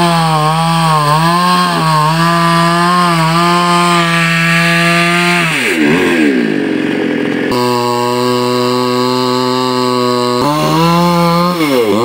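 Petrol chainsaw running at high revs while cutting into a tree trunk at its base, its engine pitch wavering and dipping as the chain bites. For a few seconds past the middle it holds a steadier, lower pitch, then goes back to wavering.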